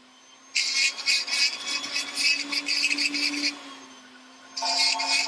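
A diamond setter's tool working a ring held in a setting block: two stretches of rapid, scratchy metallic strokes with a short pause in between, over a steady low hum.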